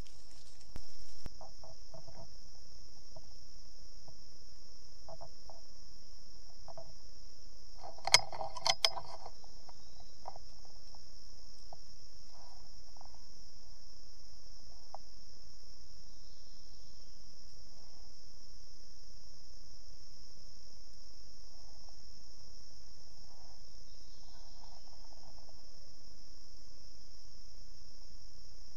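A steady, high-pitched chorus of insects drones on unbroken in the woods. About eight seconds in, a brief cluster of sharp knocks stands out above it.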